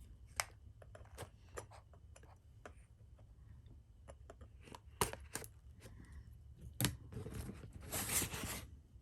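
A small knife box and its packaging being handled and opened by hand: scattered light clicks and taps, two sharper knocks about five and seven seconds in, then a stretch of rustling near the end.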